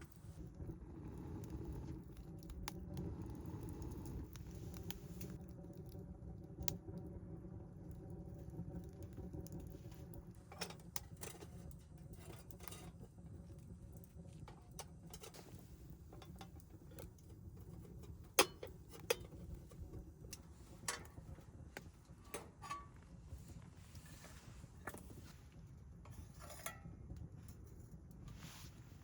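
Scattered small clicks, taps and knocks of objects being handled, over a steady low background rumble, with a sharper knock about two-thirds of the way through.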